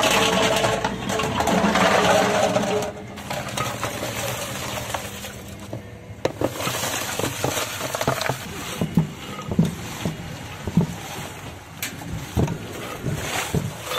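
Kulfi moulds sliding and clattering out of a metal pot into a clay pot, with some ringing from the metal. From about six seconds in, broken ice is poured from a metal basin into the pot, chunks clunking and crunching with several separate knocks, and is then shifted by hand.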